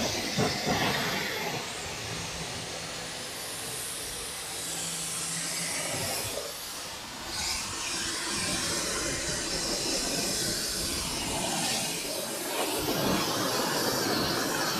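Pressure washer spraying a jet of water over an engine bay, a steady hiss of water striking the engine cover, hood and cowl, rinsing off degreaser. It dips briefly about halfway through and gets a little louder near the end as the spray moves to the cowl.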